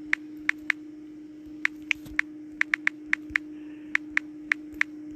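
Touchscreen phone keyboard clicking as text is typed: about fifteen short, irregular taps over a steady low hum.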